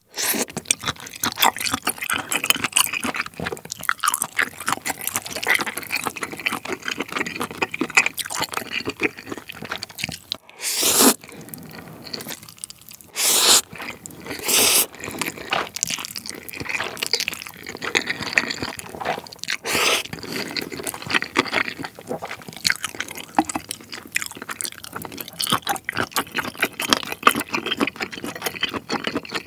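Close-miked wet chewing of saucy black-bean instant noodles (jjapaghetti) with shrimp and octopus, with several loud slurps of noodles being sucked in partway through.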